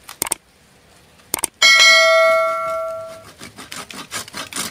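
Hand saw blade on a thin tamarind bonsai stem: a couple of light clicks, then the metal blade rings out like a bell for about a second and a half after being knocked, followed near the end by a run of quick sawing strokes cutting the stem.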